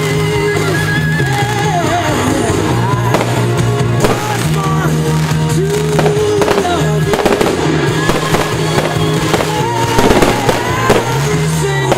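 A fireworks display with several shells bursting in sharp bangs and crackles, over a loud song with a sustained melody.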